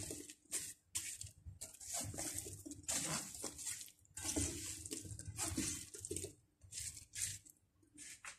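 A spatula stirring chopped fruit and ham in a large nonstick pan: wet chunks sliding and scraping against the pan in irregular strokes, about one a second, thinning out near the end.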